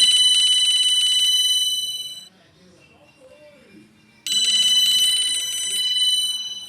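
Nokia 225 mobile phone ringtone: a bright electronic ring with a fast rapid pulse, sounding twice for about two seconds each with a pause of about two seconds between.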